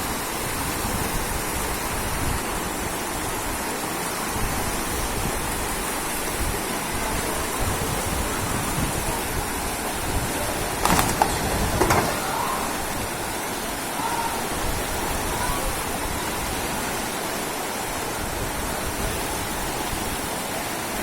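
Steady rushing of floodwater, with two short sharp sounds near the middle.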